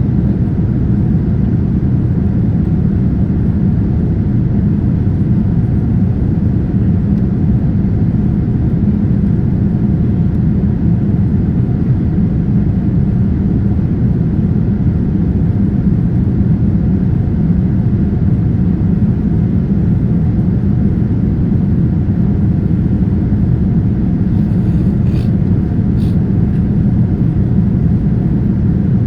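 Steady cabin rumble of a Boeing 787-9 in flight, its engines and airflow heard from a window seat, even and unchanging in level. Two faint clicks come near the end.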